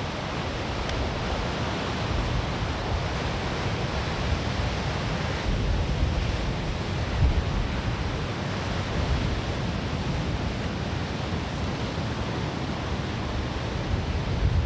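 Rough sea surf breaking on a rocky beach, a steady wash of noise, with wind gusting on the microphone as uneven low rumbles.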